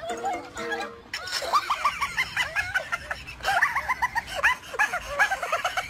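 Laughter in quick, repeated high-pitched bursts, beginning about a second in, after a brief run of steady tones.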